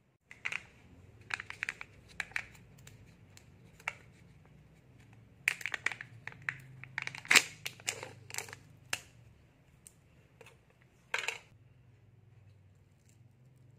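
Foil lid of a Kinder Joy cup crinkling and tearing as it is peeled off the plastic tray, in short bursts that are densest from about five to nine seconds in, with one more burst near eleven seconds. Lighter crinkles and clicks from handling come earlier.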